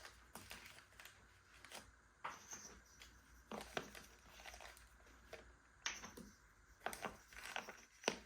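Faint, scattered clicks and light knocks of a wooden bending form, cardboard and clamping blocks being handled on a workbench, about ten small sounds spread through the stretch.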